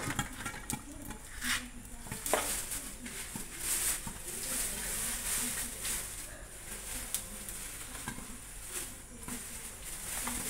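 Fish frying in hot oil in a covered steel wok, a steady sizzle with a few sharp clicks.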